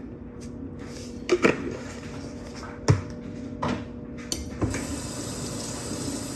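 A few knocks of handling, then water running steadily into a container for the last second and a half or so.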